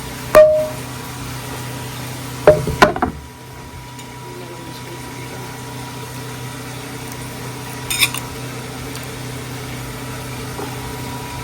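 A few sharp clinks and knocks of kitchen utensils against a pan, one ringing briefly, over a steady low kitchen hum.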